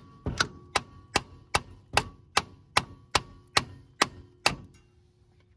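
About a dozen hammer taps on the front CV axle of a Kawasaki Mule 3010, driving it out of the wheel hub. The taps come at a steady two to three a second, each with a short metallic ring, and stop about four and a half seconds in.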